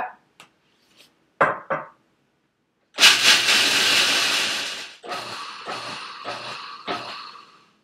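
Food processor chopping blanched slivered almonds in pulses: one long pulse of about two seconds, then about five short pulses in quick succession. Two knocks come about a second and a half in, before the motor starts.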